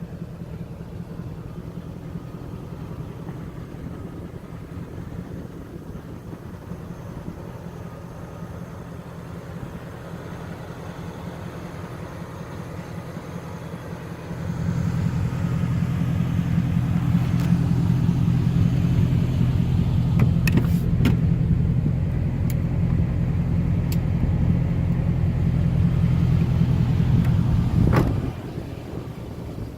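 2003 Chevy Avalanche engine idling steadily with a low hum. About halfway through it suddenly gets much louder, a few sharp clicks come over it, and a sharp knock near the end brings it back down to its earlier level.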